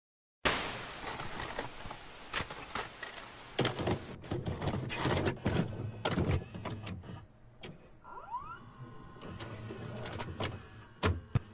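VCR taking in a videocassette and threading the tape: a run of mechanical clicks and clunks over motor whirring and hiss, with a brief rising whine about eight seconds in.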